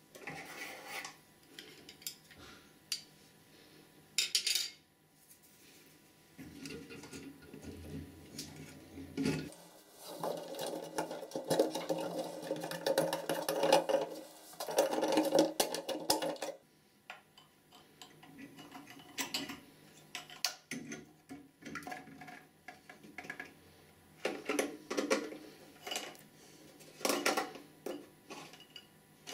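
Plastic fittings inside a Geberit concealed toilet cistern being handled and worked loose by hand: irregular clicks, knocks and rubbing of plastic on plastic, with a busier stretch of rattling and scraping in the middle.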